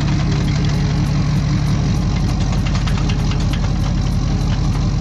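Duramax V8 turbodiesel pickup engine idling steadily, with a fast, even diesel clatter.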